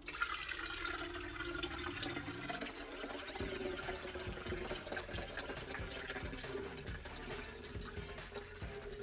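Water running and splashing, starting suddenly and going on steadily, with many small clicks and gliding tones.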